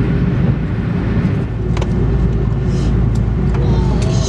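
Steady low rumble inside an Airbus A330-200 cabin as the airliner taxis after landing, from idling engines and air conditioning, with a few light clicks.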